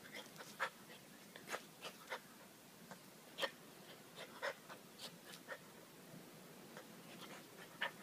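A bull terrier puppy playing and pouncing at a small object on brick paving: about a dozen short, sharp little sounds at irregular intervals, with a lull between about six and seven and a half seconds in.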